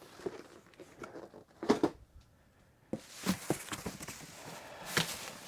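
Cardboard model-kit boxes being handled and set down: scattered light knocks and rustling, with a short lull about two seconds in.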